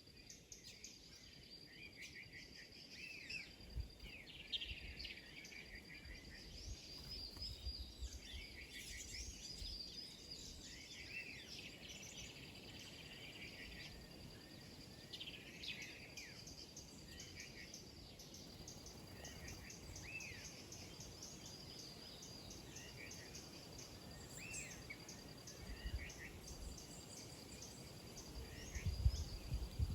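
A flock of small birds chirping and calling, busiest in the middle, over a steady high insect trill. A few low rumbles come in, the loudest near the end.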